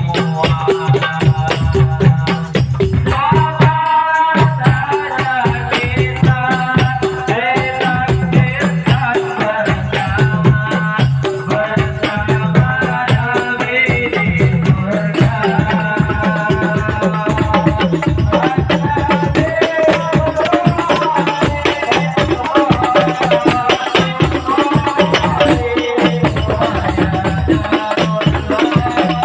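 Sholawat devotional music, a sung melody over busy, fast hand percussion and rattles, played loud through a large sound system.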